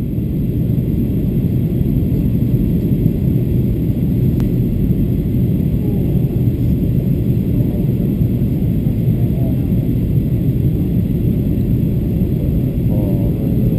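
Steady low rumble of cabin noise inside a Boeing 737-800 on its descent to land. It is a mix of the CFM56-7B turbofan engines and airflow over the fuselage, heard from a window seat over the wing.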